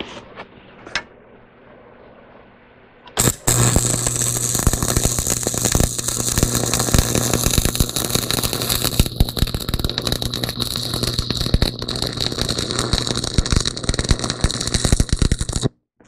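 Electric welding arc crackling steadily over a low hum, struck about three seconds in and cut off abruptly just before the end as a weld bead is laid on steel.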